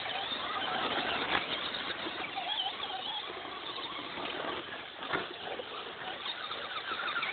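Electric radio-controlled off-road cars running on a dirt track: whining electric motors and tyre noise, with short wavering whines and two brief knocks.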